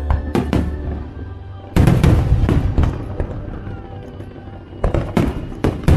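Fireworks shells bursting in an irregular series of sharp bangs with rumbling echoes, the loudest about two seconds in and a quick cluster near the end, with show music playing underneath.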